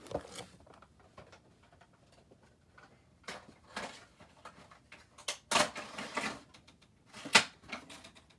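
Cardboard and plastic handling as a Funko Pop vinyl figure's window box is opened and the figure is pulled out of its plastic insert: a run of scattered scrapes, rustles and clicks. The loudest come about five and a half seconds in and a sharp one near seven and a half seconds.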